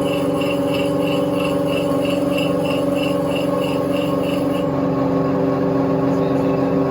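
Electric dry clipper-blade sharpening machine running with a steady motor hum as its powdered disc spins. A faint high pulsing, about three a second, rides over the hum and stops about four and a half seconds in.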